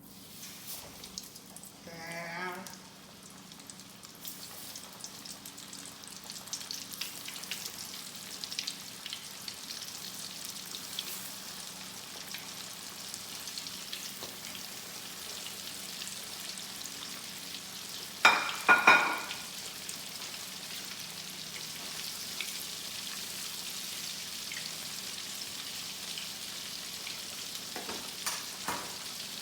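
Flour-coated chicken pieces frying in hot oil: a steady sizzle that grows over the first few seconds. A loud clatter comes about eighteen seconds in.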